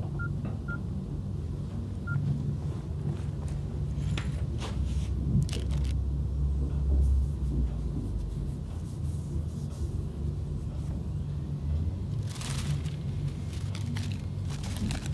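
A steady low droning rumble with three short beeps in the first two seconds, like a mobile phone's keypad tones, and scattered rustling crackles of bag handling that grow busier near the end.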